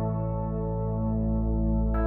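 Background music: ambient chords held steadily, with a new, brighter chord coming in near the end.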